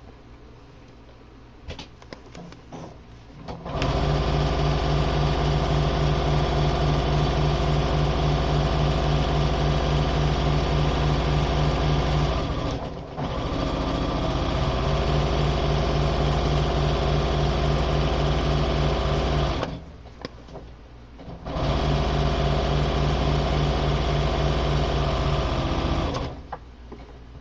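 Electric sewing machine running at a steady speed under foot-pedal control, in three runs of several seconds each with short stops between. A few light clicks come before the first run.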